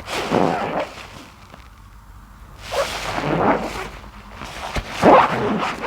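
Soapy wet grout sponge being squeezed by hand, three squishy squeezes about two and a half seconds apart.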